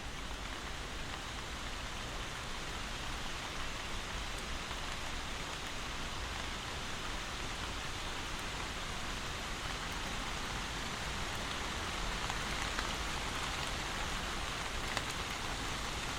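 Steady rain falling, an even hiss with a few single drops ticking out now and then.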